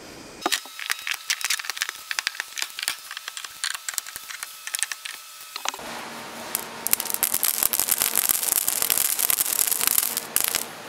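Small metal staples clicking on a plywood sheet: scattered sharp clicks for the first five seconds, then a dense stream of staples poured out onto the plywood, clinking for about four seconds and stopping shortly before the end.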